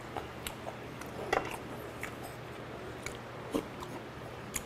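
Close-up eating sounds: chewing and mouth sounds with scattered light clicks of a metal spoon against the stew pot and bowl, over a low steady hum.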